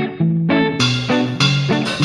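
Background music: quick, plucked, guitar-like notes in a bouncy rhythm, filling out with more instruments about a second in.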